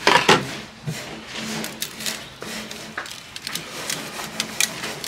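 Scattered clicks, taps and crinkles from a disposable aluminium foil pan being handled while seasoning is shaken over it from a shaker jar, over a faint steady hum.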